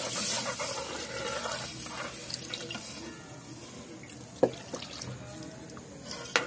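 Thin besan-and-water mixture poured in a stream from a steel bowl into a kadai, the liquid splashing into the pan and growing quieter as the pour goes on. Two short metallic clinks, one about four seconds in and one near the end.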